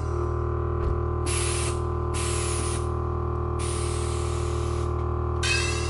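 Accuair air-suspension system being worked from its phone app: the air compressor runs with a steady hum while the valves let out four separate short bursts of hissing air, each about half a second to a second long.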